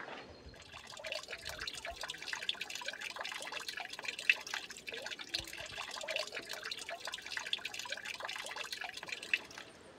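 Water dripping and trickling: many small drops falling and splashing, unevenly spaced, with two louder splashes about four and nine seconds in.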